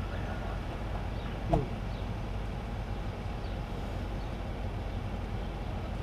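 Steady low rumble of idling vehicle engines. About a second and a half in, one short, sharp sound quickly falls in pitch.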